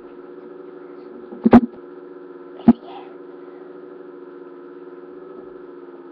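Steady electrical hum from the webcam's microphone, with a short loud bump about one and a half seconds in and a sharp click just before three seconds.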